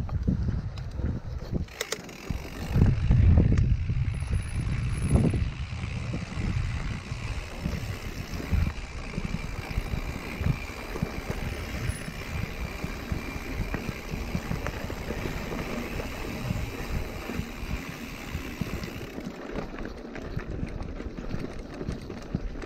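Mountain bike riding over a grassy dirt and gravel trail: tyres rolling, with the bike's frame and parts knocking and rattling over bumps. Wind buffets the microphone, with a louder stretch of low rumble about three to five seconds in.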